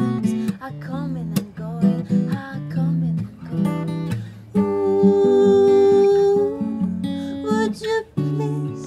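Acoustic guitar strummed and picked in a live song, with a woman singing over it and holding one long note in the middle.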